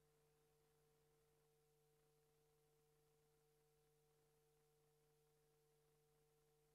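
Near silence, with only a faint steady hum from the recording's noise floor.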